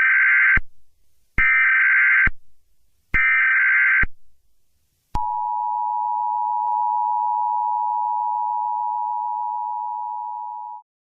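Emergency Alert System alert tones: three short bursts of SAME header data tones about a second apart, then the two-tone EAS attention signal, held steady for about six seconds before cutting off abruptly.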